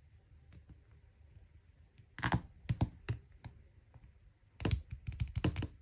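Smartphones being handled: two clusters of light taps and knocks, the first about two seconds in and the second near the end.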